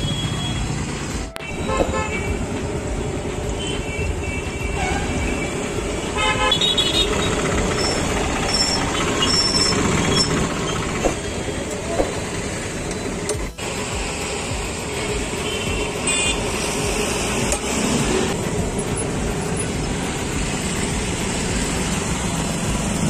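Busy roadside traffic noise with vehicle horns honking a few times.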